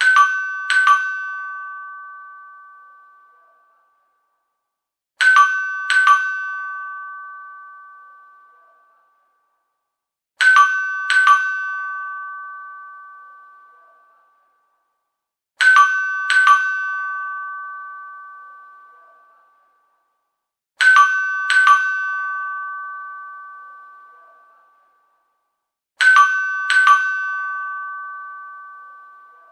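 High-pitched vintage apartment entrance door chime ringing ding-dong: two quick strikes less than a second apart, each ringing out and fading over a few seconds. The pair repeats six times, about every five seconds.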